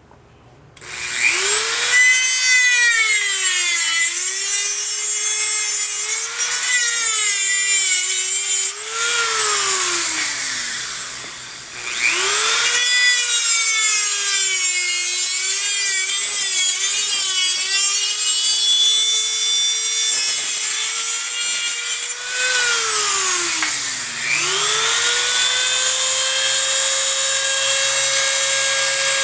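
Handheld rotary tool with an abrasive cut-off wheel cutting thin sheet metal: a high whine with a grinding hiss that starts about a second in. Its pitch sags as the wheel bites into the metal and climbs back as the load eases, dipping low twice.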